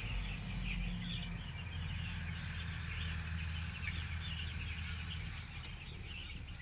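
A large flock of seven-day-old chicks peeping continuously, many small high chirps overlapping, over a low steady hum.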